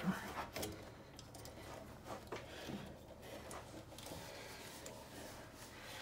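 A few faint clicks and handling noises as a start relay is pushed back onto a refrigerator compressor's terminals, in about the first half second, then low room tone.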